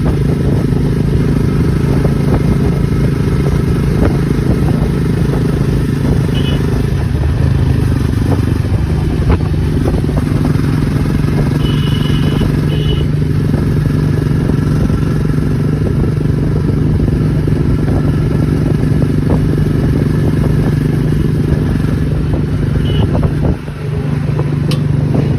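Jawa Perak's 334 cc single-cylinder engine running steadily under way, its note holding even, with a short dip in level about 23 seconds in before it picks up again.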